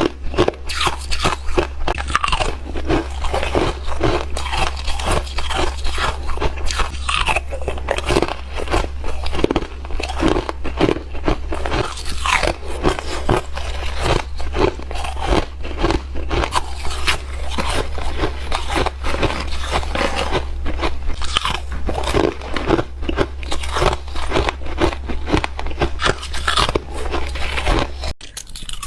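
Chip ice being bitten and chewed close to the microphone: dense, rapid crunching, several crunches a second, over a steady low hum.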